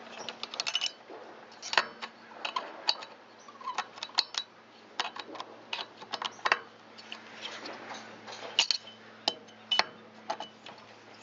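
Irregular metallic clicks and taps of a hex-key tool working the cylinder base screws of a Shindaiwa T272X trimmer engine as they are tightened down, a few with a short metallic ring.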